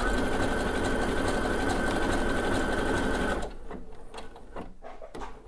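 Babylock Brilliant sewing machine running steadily through a blanket stitch, with a steady high motor whine over the needle's rapid clatter. It stops abruptly about three and a half seconds in, leaving a few faint clicks.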